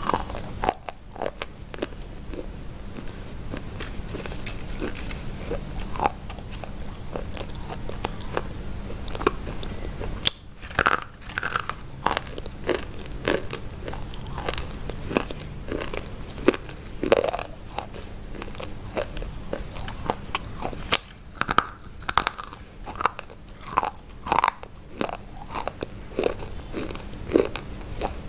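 Close-miked biting and crunchy chewing of brittle white chalk-like sticks. Sharp snaps come irregularly, bunched in clusters about a third of the way in and again through the last third.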